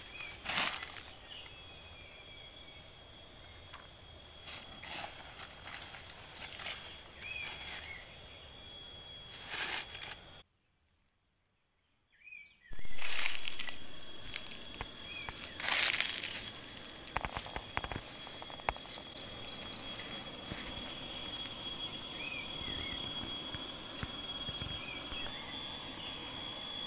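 Outdoor woodland ambience: a steady high insect drone with a few short bird chirps and some soft knocks. The sound cuts out completely for about two seconds near the middle.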